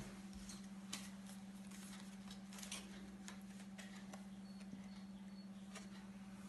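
Quiet room tone with a steady low electrical hum and a few faint scattered clicks.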